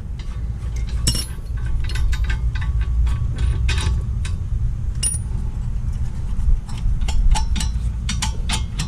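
Metal tools and parts clinking and rattling irregularly as the rear wheel hub assembly is unbolted and worked off. A steady low rumble runs underneath.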